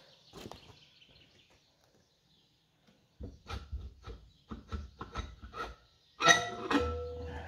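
Metal tools and engine parts clinking and knocking while the cylinder heads come off a Lister air-cooled diesel. About six seconds in there is a loud metal clang that rings on for a moment.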